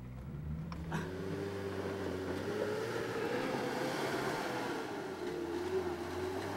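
Pickup truck's engine running under load as it climbs a dirt slope off-road, a steady drone whose pitch rises a little and then falls back. There is a short click about a second in.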